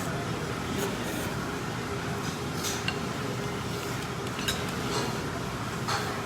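Tableware clinking and scraping as ramen is eaten: a spoon and chopsticks knocking against a ramen bowl several times, over a steady background hum.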